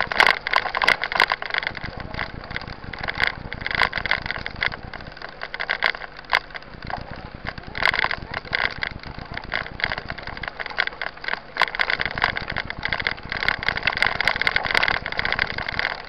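Mountain bike rolling over a gravel dirt road: a steady crunching rumble from the tyres, with frequent irregular knocks and rattles as the bike jolts over the bumps.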